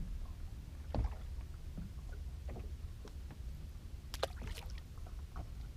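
Handling noise aboard a small fishing boat: a low steady rumble, with a few light knocks and clicks, one about a second in and a cluster around four seconds in.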